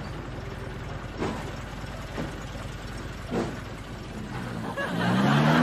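A vehicle engine running steadily, with a few short knocks, then rising in pitch and getting louder near the end as it revs and pulls away.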